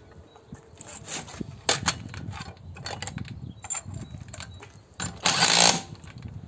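Cordless impact driver run in one short burst of about half a second near the end, spinning an angle grinder's disc clamping nut loose through an adapter bit. Before it come light knocks and clinks of the tools being handled.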